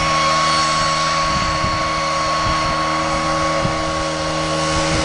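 Stihl KM130 leaf blower's small four-stroke engine and blower fan running at full speed at a steady, unchanging pitch while driving a canoe.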